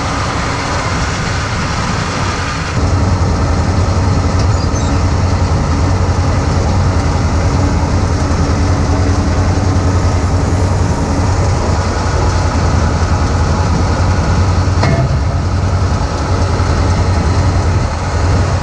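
John Deere 4250 tractor's diesel engine running steadily, with a constant deep hum. The sound steps up louder about three seconds in and then holds steady.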